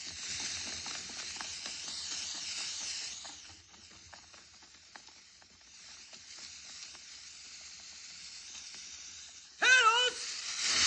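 Steady hiss of smoke canisters pouring out coloured smoke, louder in the first few seconds and again later, with scattered knocks and scuffling. Near the end comes a loud, high, wavering yell.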